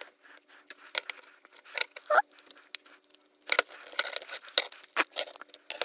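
Scattered small clicks and taps of a plastic hand-controller case and its circuit board being handled and pried apart, with a short squeak about two seconds in. The board is held in by an LED stuck in the case.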